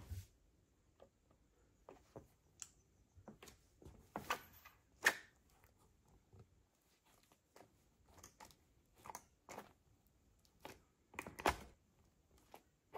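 Nude patent high-heel pump pressing down on and squishing a burst tube of white cream on a hard floor: scattered soft squelches and taps at irregular intervals, the loudest about five seconds in and again near the end.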